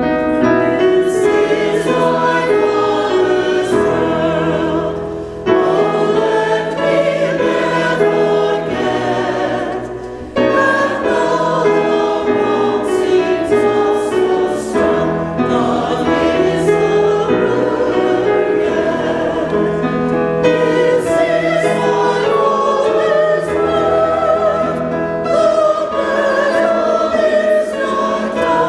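Many voices singing a hymn together over sustained low accompaniment notes, with brief pauses between phrases about five and ten seconds in.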